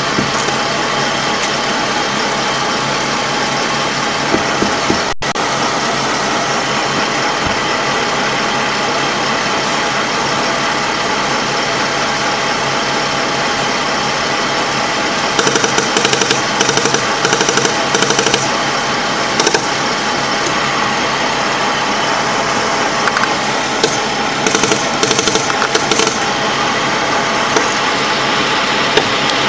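LAV III armoured vehicle's diesel engine running steadily, heard from inside the driver's compartment. Short bursts of rapid sharp cracks cut through about halfway in and again a few seconds before the end.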